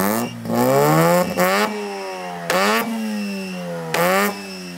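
Carbureted Mazda FB RX-7 rotary engine being revved at the exhaust. One rev is held for about a second and a half, then there are two quick throttle blips, and it drops back to idle near the end.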